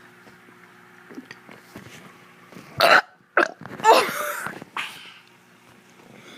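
A child burping on purpose, several burps in a row from about three seconds in: a loud short burp, a brief one right after, then a longer burp lasting most of a second, and a smaller one near the end of the run.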